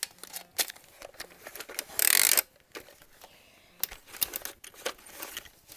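Handling noise: scattered clicks and taps as the plastic instant camera is turned over in the hand, with one loud rubbing rustle lasting under half a second about two seconds in.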